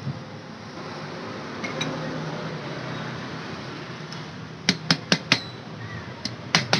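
Sharp metallic clicks and clinks of steel pliers and metal parts against a scooter's centrifugal clutch shoe assembly as it is worked on by hand. There is a pair of clicks early, a quick run of four about two-thirds through, the last with a short ring, and a few more near the end.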